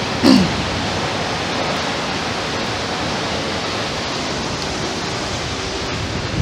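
Steady rushing of water at the dam, an even, unbroken noise, with a brief voice sound right at the start.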